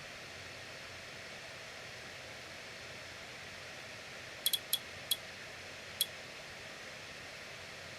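A few small, sharp clicks over a steady background hiss: four in quick succession about halfway through and one more a second later.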